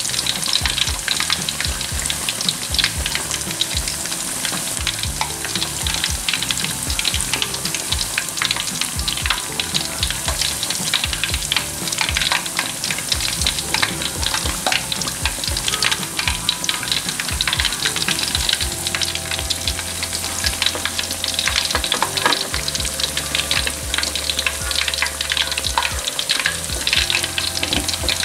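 Rice-flour anchovy crackers (peyek teri) crackling and sizzling in hot oil in an aluminium wok, with a slotted spatula stirring through the oil and against the pan.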